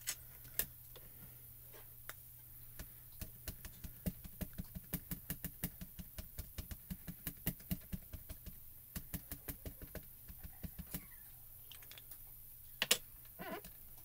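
Quick light tapping, several taps a second for about eight seconds, as an ink pad is dabbed onto a clear stamp on the plastic door of a stamp positioning tool to ink it. A single sharper knock comes near the end.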